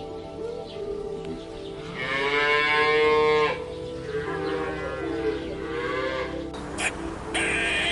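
Cow mooing twice: a long, loud moo, then a second, weaker one.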